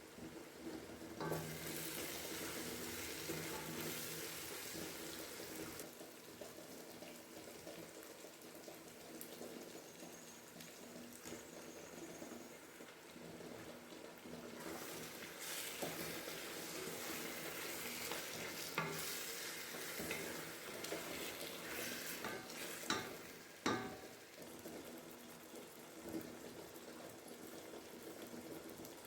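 Food sizzling as it fries in a pan while it is stirred, the sizzle swelling twice, with a few sharp knocks of a utensil against the pan in the second half.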